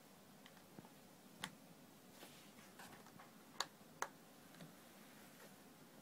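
Near silence broken by a few faint sharp clicks, the two loudest about half a second apart past the middle, as a USB power cable is plugged into a small plastic cup-shaped ultrasonic humidifier and the humidifier is switched on.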